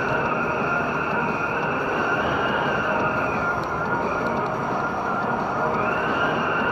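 Steady road and tyre noise from a 1992 BMW 320 (E36) driving at about 100 km/h on a snowy road, heard inside the car. A high drone in it drops in pitch around the middle and climbs back near the end.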